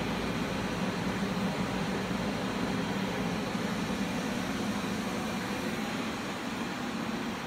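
Steady whirring hum of the cooling equipment on a running CO2 laser tube test rig, like fans and a water pump running, with an even hiss over a low hum.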